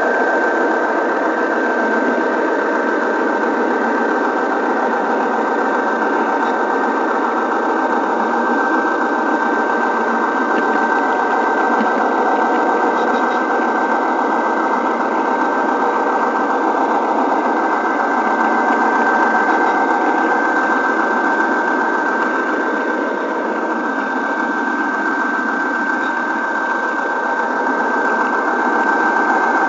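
Model train running along its track, picked up by a camera riding in the train: a steady mechanical whir of the small motor and wheels on the rails, with a constant high whine.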